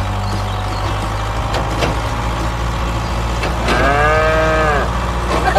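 A tractor engine runs with a steady low hum. About four seconds in, a cow gives a single moo lasting about a second.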